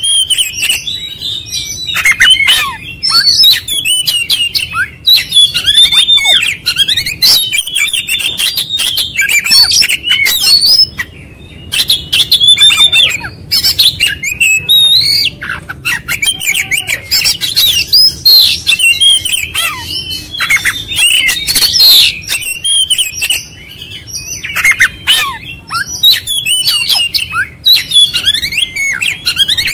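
Oriental magpie-robin singing loud and nearly without a break: a fast, varied run of whistles, chatters and harsh notes, running through its whole repertoire of learned phrases, with a couple of short pauses.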